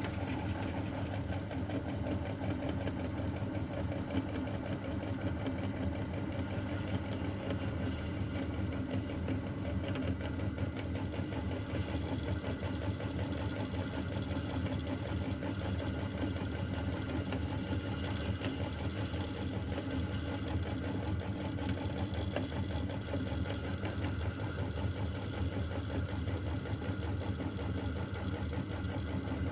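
Electric meat grinder's motor running steadily, a constant hum.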